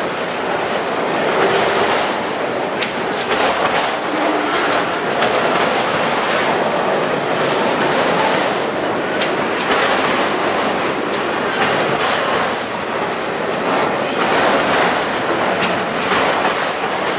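Freight train of autorack and double-stack container cars rolling past at close range: a steady noise of steel wheels on rail, broken by irregular clicks as the wheels cross rail joints.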